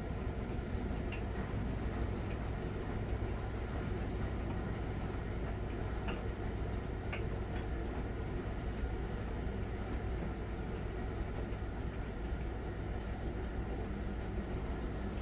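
Miele Novotronic W921 front-loading washing machine running mid-programme, a steady low rumble with a few faint light ticks.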